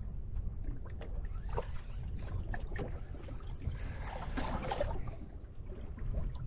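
Water lapping and sloshing around a small drifting fishing boat, over a steady low rumble of wind, with a few light knocks and clicks from the boat and tackle.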